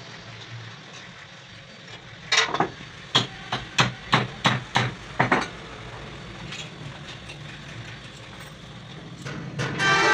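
A quick run of about ten sharp hammer blows on metal, lasting about three seconds. Near the end comes a ringing metallic clatter.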